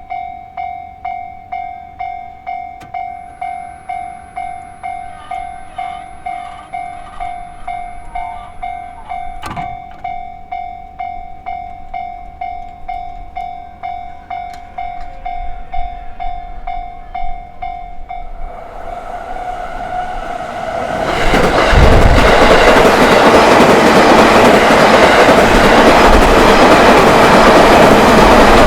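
Japanese level-crossing warning bell ringing, a steady electronic ding-ding at about two strokes a second. About 18 seconds in, the bell gives way to a train approaching, and from about 21 seconds a JR Tokaido Line train passes loudly over the crossing, wheels clattering on the rails.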